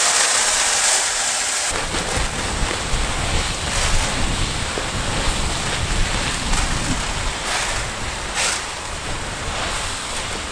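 Prilled lime pellets pouring from a cut-open bulk bag into a fertiliser spreader's plastic hopper, a steady hiss like heavy rain. The hiss is brightest in the first couple of seconds. Wind buffets the microphone.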